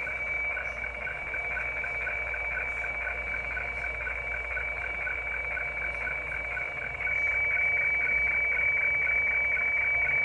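HF weather fax (radiofacsimile) signal from a shortwave receiver's speaker: a steady high tone with short, regular lower-pitched blips several times a second, over a hiss. These are the fax tones scanning lines of a mostly white chart. The signal gets louder about seven seconds in.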